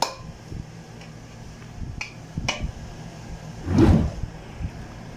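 Metal cookware being handled to serve rice: a pot lid coming off and a serving spoon scooping in a metal pot, with a few sharp clinks and one heavier knock about four seconds in. A low steady hum runs underneath.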